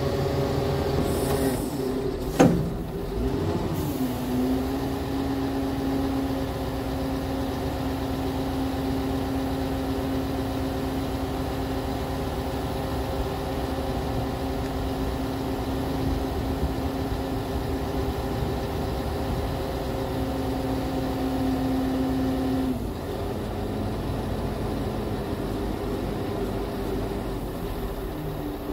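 Scania R580 truck's V8 diesel engine and power-take-off hydraulic pump running under load while the JOAB hook-lift arm folds down, a steady hum. About two and a half seconds in, a short hiss and a sharp knock come, the pitch dips and then settles; about 23 seconds in the steady tone cuts off as the hydraulics stop working.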